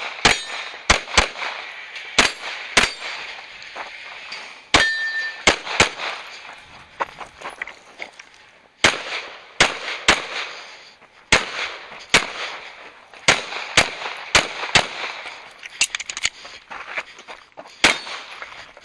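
Semi-automatic pistol firing about twenty shots in fast pairs and short strings, with a pause of about three seconds midway. One shot about five seconds in is followed by a short metallic ring.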